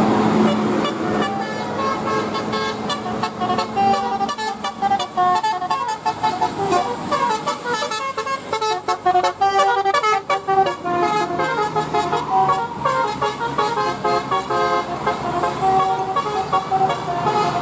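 Bus telolet horn, a multi-tone air horn, playing a fast melody of short notes that jump quickly between pitches.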